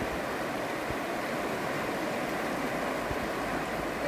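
Muddy floodwater from a downpour rushing steadily across a road.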